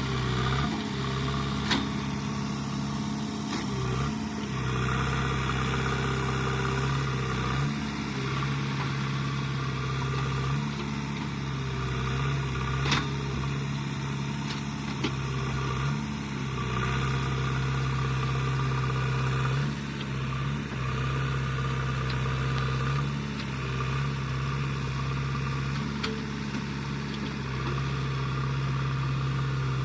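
JCB 3DX backhoe loader's diesel engine running steadily, its note dipping briefly a few times, with a few sharp knocks, one just after the start and one about halfway through.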